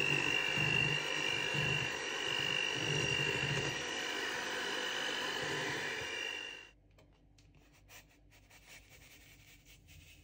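Electric hand mixer running steadily with a high whine, its beaters churning a thick butter-and-pudding cream in a stainless steel bowl, then switched off abruptly about two-thirds of the way through. Only faint light taps and ticks follow.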